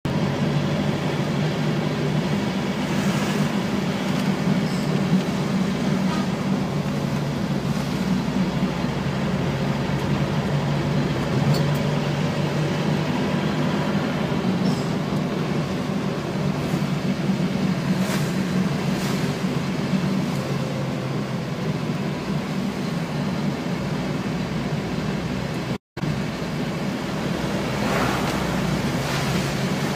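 Vehicle engine running steadily, heard from inside the cab while driving, with tyre noise from the wet road. The sound cuts out for a split second near the end.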